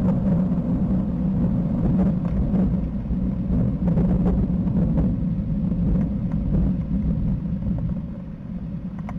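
Long rolling rumble of thunder, low and continuous, easing off slightly near the end.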